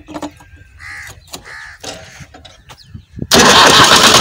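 A crow cawing twice about a second in, with a few light clicks. Near the end, the HH Dabung tractor's diesel engine comes in suddenly, running loud and close.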